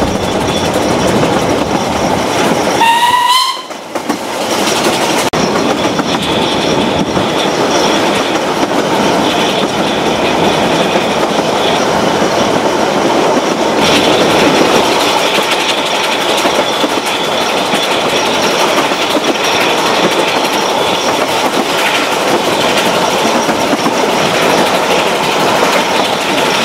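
Ride in a narrow-gauge steam train carriage: a steady rumble of wheels on the rails and rushing air throughout. The locomotive's whistle sounds once, a short blast about three seconds in.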